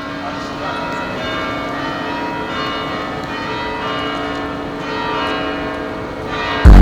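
Bell-like ringing, many overlapping pitched notes held steadily without words. Just before the end a loud, deep bass beat cuts in suddenly.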